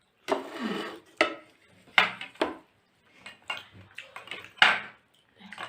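Cutlery clinking and scraping against a plate, in a string of short, sharp knocks while food is picked up to eat.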